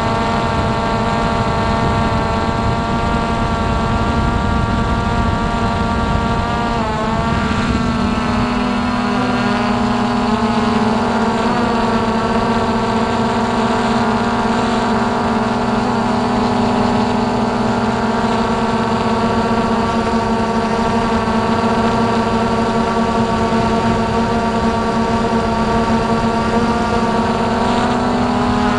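Hubsan X4 Pro H109S quadcopter's motors and propellers whining steadily in flight, several tones at once. The pitch wavers about a quarter of the way in and again near the end as the throttle changes, and a low rush under the whine thins out after the first third.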